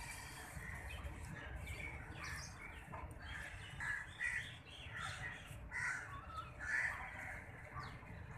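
Birds calling, a string of short calls that are loudest in the second half, over a steady low rumble.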